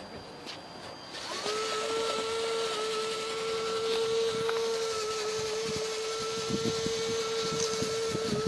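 Electric drive of a 1/14 scale RC truck whining at one steady pitch, starting about a second in, with some light knocks in the second half.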